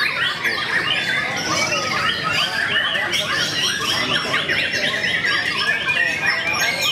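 White-rumped shama singing a loud, continuous, varied song of rapid trills and quick whistled phrases, overlapped by the song of other caged songbirds.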